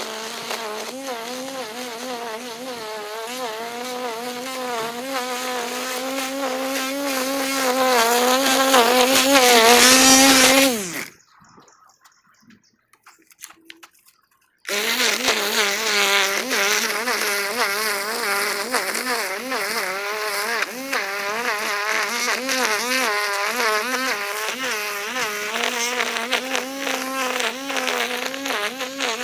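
String trimmer (weed eater) running under load, its pitch wavering as it cuts. It gets louder until about ten seconds in, then the pitch falls and the sound drops out. A few seconds later it comes back suddenly at full strength and runs on.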